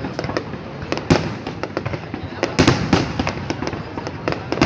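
Fireworks display: a dense, irregular series of sharp bangs and crackles from aerial shells bursting, with louder booms about a second in and again around two and a half to three seconds in.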